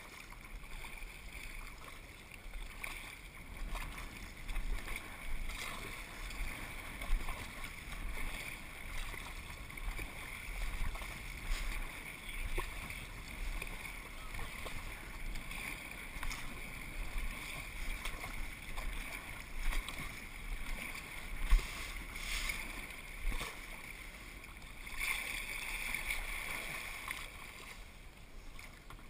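Kayak paddle strokes: the blade dipping and splashing through the water in a steady rhythm, about one stroke a second, with water washing along the kayak's hull.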